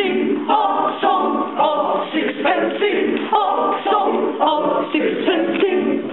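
A madrigal choir singing a cappella, several voice parts together in short rhythmic phrases.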